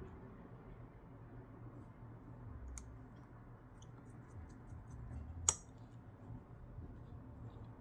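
Faint ticks and clicks of small tools and metal parts being handled, as the iPhone's small metal LCD and battery shield plates are fitted back in. There is one sharper click near three seconds in and the loudest, sharp click about five and a half seconds in, over a low steady hum.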